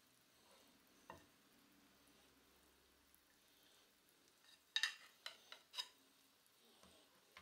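Faint sizzle of butter and oil in a cast-iron skillet. A single click about a second in, then a quick run of four or five clicks and clinks around five seconds in as tongs lift fried chicken breast from the pan onto a plate.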